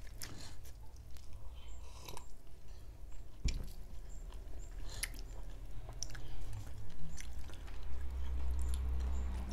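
Chewing and biting into steamed chicken, with short wet mouth clicks and smacks scattered through.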